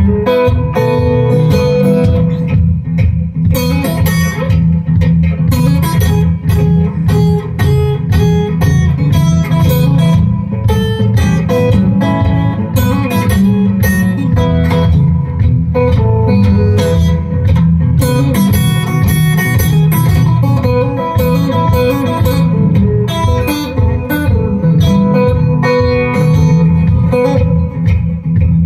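Amplified acoustic guitar with a soundhole pickup playing an instrumental blues passage: a steady low bass pulse under higher picked notes.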